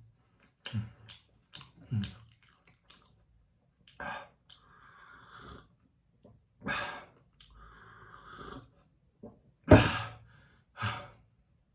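A sick man coughing several times in short bursts, with noisy breaths drawn in between; the loudest cough comes near the end.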